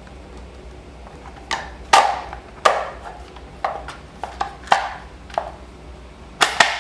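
Hard plastic housing of a 12-volt tire compressor knocking and clacking as its case halves are worked back together, about ten sharp knocks from a second and a half in, with two loud ones close together near the end.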